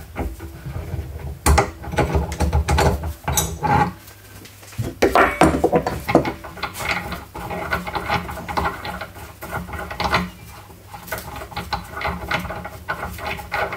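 Irregular metal clicks and clanks as a 21 mm spanner turns the screw of a tie rod end puller, pressing a wheel stud out of its wheel hub, with the hub and tool being handled in between.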